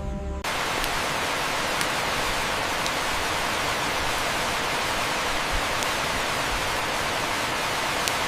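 Steady, even rushing hiss of falling water, with a few faint ticks. It starts abruptly a moment in and cuts off sharply at the end.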